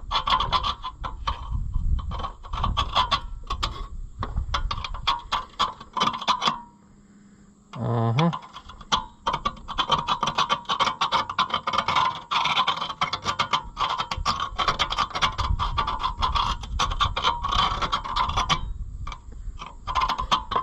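Rapid, repeated scraping strokes of a metal tool against the cast-iron engine block, cleaning the freeze-plug hole of an International LB gas engine so a new plug can seat. The scraping stops for about a second after six and a half seconds, and a short grunt is heard as it starts again.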